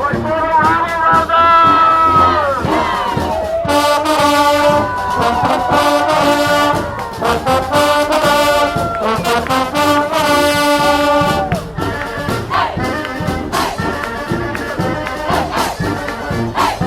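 Street marching band playing: brass horns hold chords over drums. The full band swells in about four seconds in and drops back to a lighter, drum-driven passage near twelve seconds.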